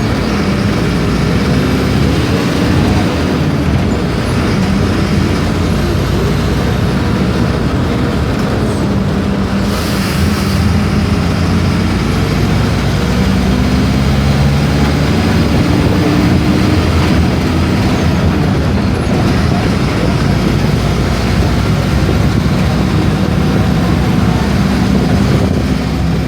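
Mercedes-Benz OF-1418 bus's six-cylinder diesel engine running steadily, its pitch shifting up and down as the bus moves. A short hiss of released air about ten seconds in.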